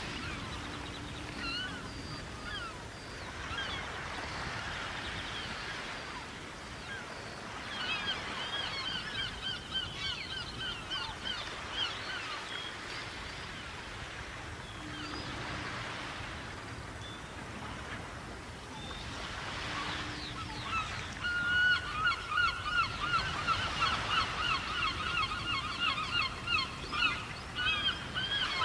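Gull calling: long runs of rapid, repeated short calls, one run about eight seconds in and a louder, denser one over the last third.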